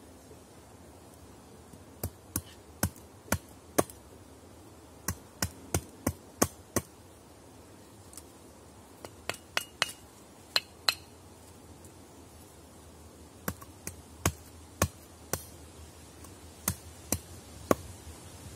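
Hammer blows on something at ground level, sharp knocks in short groups of two to six with pauses of a second or two between groups. A few of the blows have a faint metallic ring.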